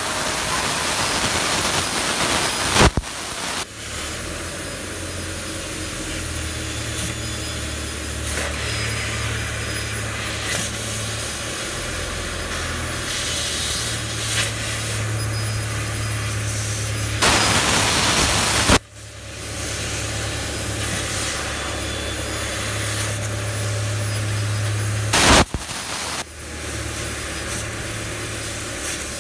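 Laser cutting machine cutting thin sheet metal: a steady hiss at the cutting head over a low machine hum. The hiss is louder in the first three seconds, again for about a second and a half past the middle, and briefly near the end.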